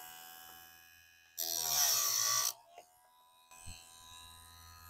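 Electric bench chain grinder's motor running with a steady hum. About a second and a half in, its wheel grinds a saw-chain tooth for about a second, then the hum carries on.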